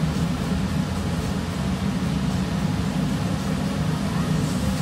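Steady low droning background noise, even and unbroken, with no clicks or knocks standing out.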